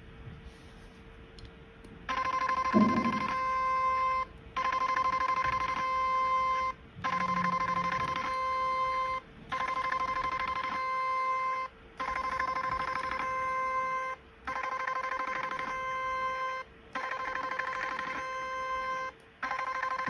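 Portable 7D HIFU machine sounding its ringing beep tone while the cartridge fires along a treatment line, in runs of about two seconds with short breaks between them, starting about two seconds in and repeating about eight times.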